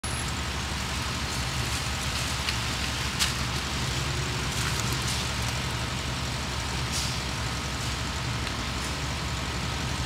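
Steady downtown street traffic noise: a low rumble of passing vehicles, with a few short clicks, the sharpest about three seconds in.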